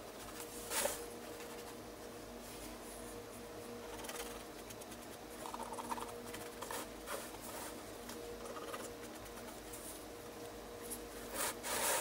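Faint rustling, scraping and light knocks of canvas boards being handled and moved, loudest about a second in and again near the end, over a faint steady hum.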